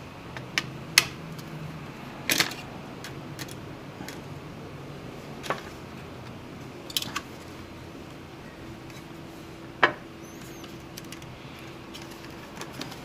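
Scattered clicks and light knocks from small plastic and metal parts of a Dell Inspiron 1525 laptop being handled and pried during disassembly, about half a dozen over the stretch, with the sharpest about two seconds in and near ten seconds.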